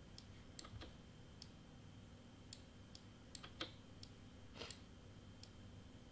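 Faint computer mouse and keyboard clicks, about a dozen at irregular intervals, as items are selected and deleted on screen.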